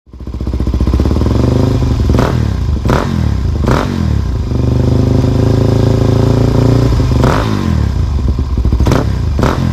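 Motorcycle engine running, with several sharp throttle blips about two, three and four seconds in and again near the end.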